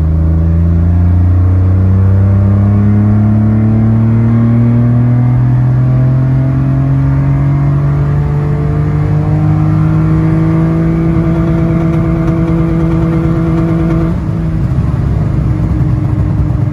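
Citroen C1's small three-cylinder petrol engine, breathing through a cone-filter induction kit, heard from inside the cabin under hard acceleration. Its note rises steadily in pitch, dips briefly near the end, and is described as definitely more throaty with the kit fitted.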